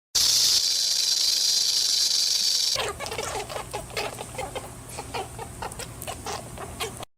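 A loud steady hiss for nearly three seconds, then a rapid run of short clucks and chirps from chickens.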